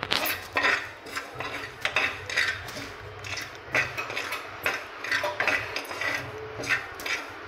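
Steel spoon stirring and scraping foxtail millet as it dry-roasts in a steel pan, in repeated quick strokes.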